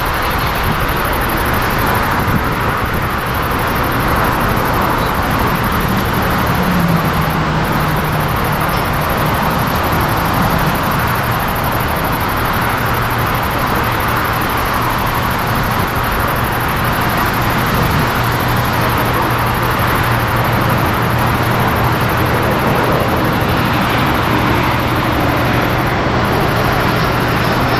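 Boeing 747-400's four jet engines at takeoff thrust: a loud, steady jet noise through the takeoff roll and lift-off.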